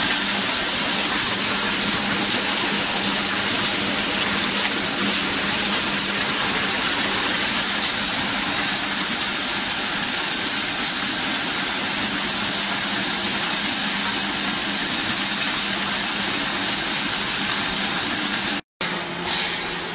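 Feed pellet line machinery running: a loud, steady mechanical hiss with a constant hum, broken by a brief dropout near the end before it carries on a little quieter.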